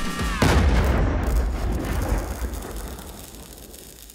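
Intro music stops with a sharp downward pitch drop, then a deep cinematic boom hits about half a second in and fades away over about three seconds.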